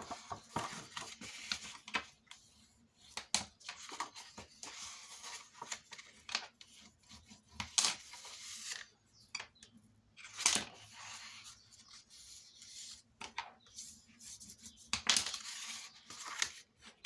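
White card paper being handled and folded by hand, with creases pressed in along the folds: irregular rustling and sliding swishes, punctuated by sharp crackles of the card.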